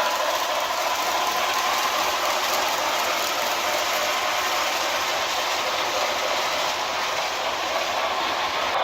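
HO scale Broadway Limited Paragon4 New York Central Hudson (4-6-4) model steam locomotive running along the track. Its onboard sound system and running gear make a steady, rapid mechanical clatter that holds at one level throughout.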